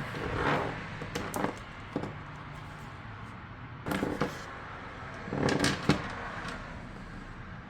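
Handling noises from unboxing a battery charger: short clicks and knocks with brief rustles of packaging, in a few scattered bursts.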